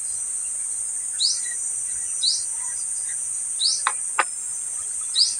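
A steady, high-pitched insect chorus drones throughout, with a short rising chirp repeating about every second or so. Two sharp clicks come close together about four seconds in.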